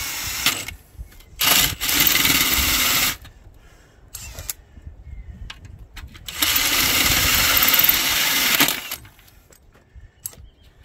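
Cordless drill driving a 1-3/8-inch Milwaukee Hole Dozer bi-metal hole saw through the steel wall of a cement mixer drum, cutting in two bursts of about one and a half and two and a half seconds, with a pause and a few clicks between.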